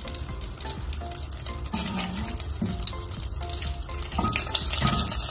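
Butter and cooking oil sizzling as the butter melts in a nonstick pot over a gas flame, a steady frying hiss. It gets louder about four seconds in, when a wooden spoon starts stirring the butter. Soft background music plays under it.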